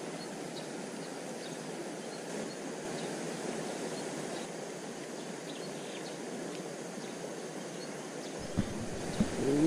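Steady rush of a small, fast-flowing river, with a couple of soft knocks near the end.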